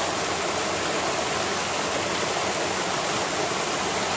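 A small waterfall pouring into a rocky stream pool: a steady, unbroken rush of water.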